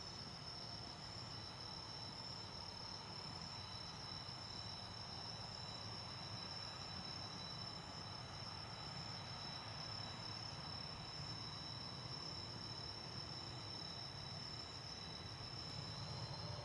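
A chorus of night insects trilling steadily at a high pitch, with a faint low rumble underneath that grows slightly louder toward the end.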